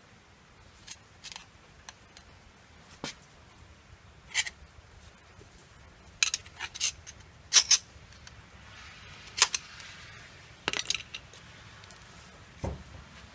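Sharp metallic clicks and clinks, irregularly spaced and some in quick pairs, from a screwdriver working against a new brake caliper as it is handled. There is a duller knock near the end.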